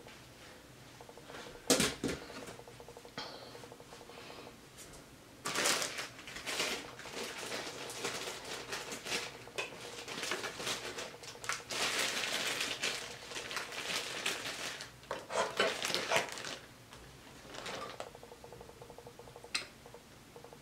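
Table noises from eating: a sharp clack about two seconds in, then long stretches of rustling and clattering of dishes and utensils, and a short click near the end.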